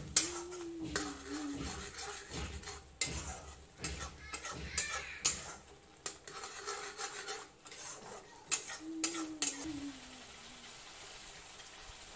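Flat metal spatula scraping and clattering against a metal kadhai as a thick masala paste is stirred and fried, with a light sizzle underneath. The knocks and scrapes come irregularly throughout.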